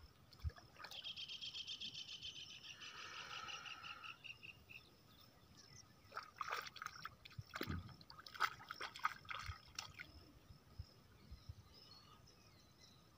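An animal's trilling call, a fast run of repeated high notes lasting about four seconds, followed a second later by a scatter of sharp clicks and taps.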